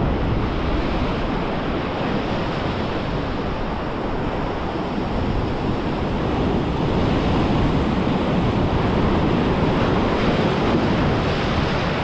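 Surf breaking and washing over low coastal rocks: a steady rush of foaming white water.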